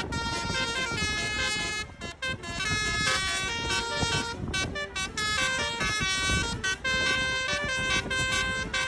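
Basuri telolet multi-tone air horn playing a fast tune, its notes changing in quick steps, over a low rumble.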